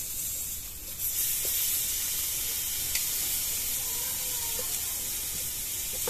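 Marinated chicken pieces sizzling on a grill as more pieces are laid on with tongs. The hiss grows louder about a second in, with one sharp click from the tongs midway.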